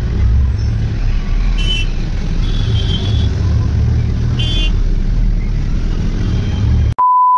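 A bus engine running with a steady low rumble, heard from inside the bus, with a few short high beeps from traffic. About seven seconds in, the sound cuts out suddenly and a loud steady electronic beep of a single pitch sounds for about a second.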